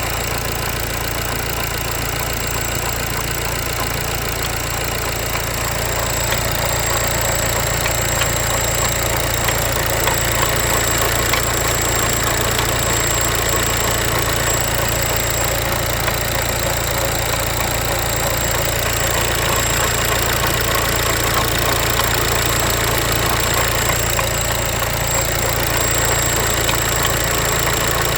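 VW Passat B8's 2.0 BiTDI (CUAA) twin-turbo four-cylinder diesel running steadily with a knock, the fault the engine is being recorded to show. A thin, steady high whine sits over the engine sound.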